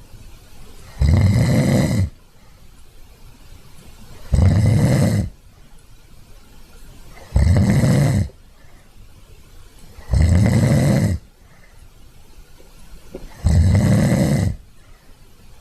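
A sleeping dog snoring: five snores about three seconds apart, each lasting about a second.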